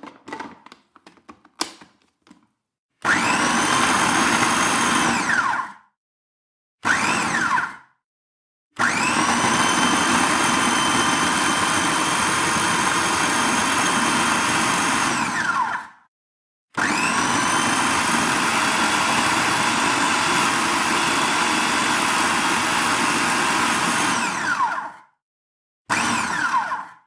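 Electric blender motor run in five separate bursts: two long runs of about seven and eight seconds, one of about three seconds and two short pulses. Each spins up with a rising whine and winds down as it is switched off. A few light clicks come before the first run.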